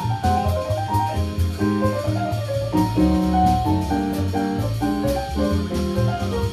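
Small jazz group playing live: keyboard chords over a moving low bass line, with a drum kit's cymbals keeping time.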